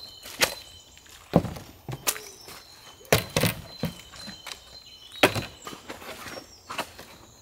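Wooden OSB panels of a flat-pack cabin being handled and set down on its base: a series of sharp wooden knocks and thuds, the loudest about one and a half, three and five seconds in, with footsteps in dry leaf litter between them.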